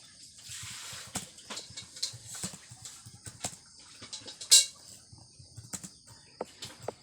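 Computer keyboard being typed on: an irregular run of key clicks, with one louder keystroke about two-thirds of the way through.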